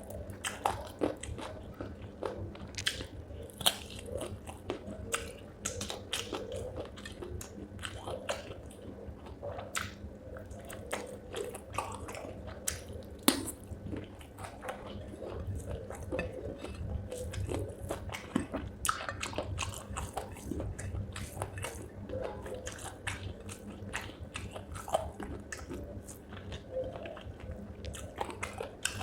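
A person chewing and biting into spicy chicken feet with rice, close to the microphone: irregular crunches, wet smacks and sharp clicks from the mouth.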